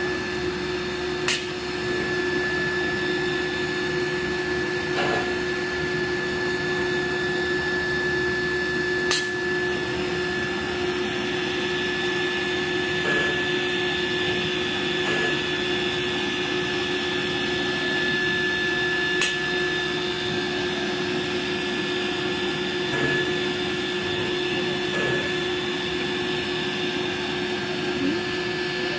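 Twin-spindle CNC nesting router running: a steady whine held at one pitch over an even machine drone, with three sharp clicks spread through it.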